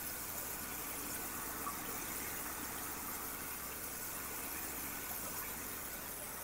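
Steady hiss of water spraying from a J-Rod pressure-washer wand, rinsing house siding and a front door at low pressure, with a low machine hum underneath.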